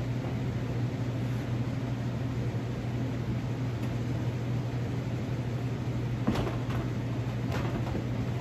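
Steady low mechanical hum, with a few short crinkles and taps about six and seven and a half seconds in as micropore tape is handled and pressed onto a plastic tub.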